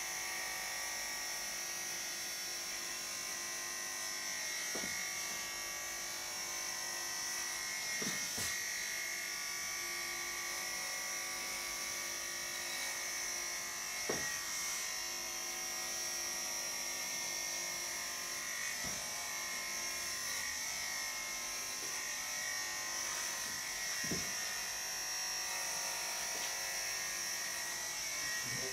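Electric pet grooming clippers fitted with a 16 mm metal guard comb, running with a steady high buzz as they shave a bichon frise's curly, unwashed coat. A few faint clicks come every few seconds.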